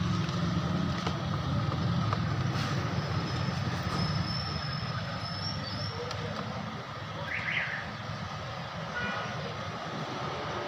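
Steady low background rumble, a little lighter after about six seconds, with a few faint clicks and a brief high chirp about seven seconds in.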